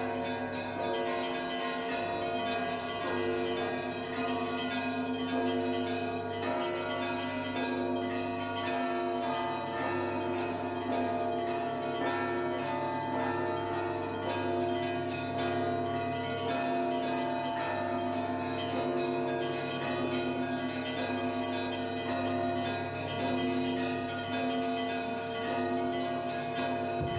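Russian Orthodox church bells ringing together in a continuous peal: rapid strikes of smaller bells over the long, sustained tones of larger ones.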